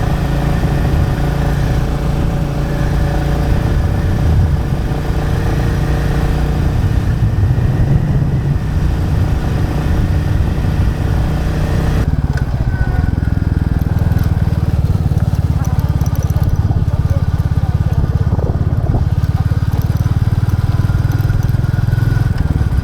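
Royal Enfield Classic 350's single-cylinder engine running on the move, with wind hiss over it. About halfway through the hiss cuts off suddenly and the engine carries on low and steady.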